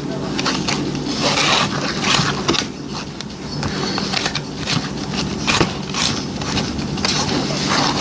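A fork stirring and scraping through clear glue slime as it is mixed with activator, in irregular strokes.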